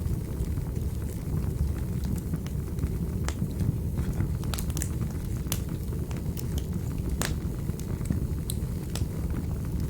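Fireplace fire crackling: irregular sharp pops and clicks over a low, steady rumble of the flames.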